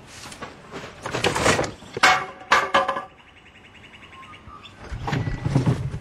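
Objects on a shed shelf being shifted and handled, in a few short bursts of scraping and clatter, the last one lower and fuller.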